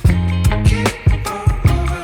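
Background music with a steady drum beat and a heavy bass line in a funk or soul groove.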